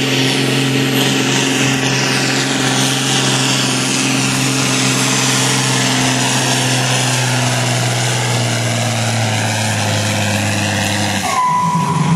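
John Deere 4440 tractor's diesel engine running hard and steady under load during a tractor pull. The engine note drops away about 11 seconds in, leaving a brief high whine.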